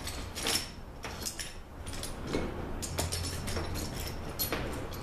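Small metal hand tools clinking and rattling at irregular moments: a Torx socket, adapter and extension being sorted out and fitted together.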